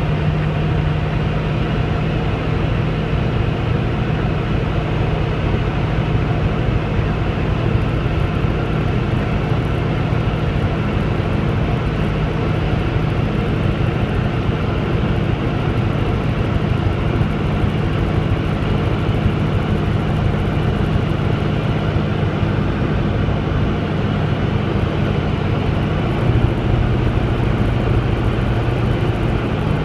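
Diamond DA20 light aircraft's piston engine and propeller running steadily, an even drone with a strong low hum.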